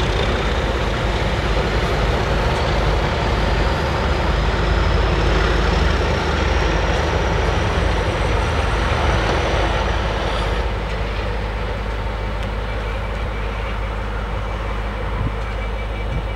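Class 37 diesel locomotives' English Electric V12 engines working under power as the Rail Head Treatment Train pulls away, with a whistle that rises slowly in pitch over the first ten seconds. The sound drops a little about ten seconds in as the train draws off.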